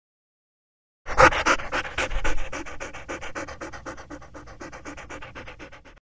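Golden retriever panting: quick, even breaths, about six a second, starting about a second in, loudest at first and fading away.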